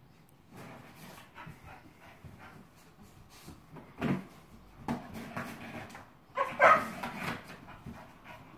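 A dog giving a few short whines and barks, the loudest cluster about two-thirds of the way through, over light scuffling. It is vocalising at a cardboard box with a treat hidden inside.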